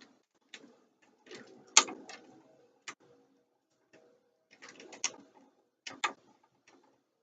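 Hand tools and copper wire being worked at an electrical outlet's screw terminal: a series of sharp metallic clicks and short rattles, the loudest a little under two seconds in and another cluster around five to six seconds.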